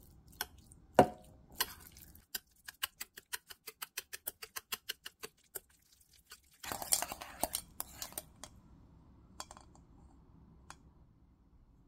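Wire whisk clicking against a ceramic bowl as it mashes and breaks up a block of tofu: a few sharp taps, then a fast even run of taps about five a second. About seven seconds in there is a second of denser scraping, followed by a few scattered taps.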